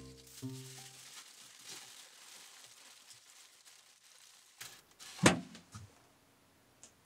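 Aluminium foil rustling faintly as a foil-wrapped chicken is pushed into a toaster oven, then, about five seconds in, the toaster oven's door shutting with one loud clack and a short rattle after it.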